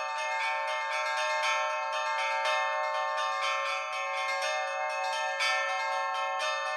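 Church bells ringing a Christmas peal: several bells of different pitches struck in quick succession, several strikes a second, their tones overlapping and ringing on.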